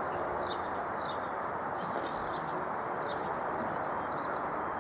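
Small birds chirping in short scattered calls, several a second, over a steady background rush of outdoor noise.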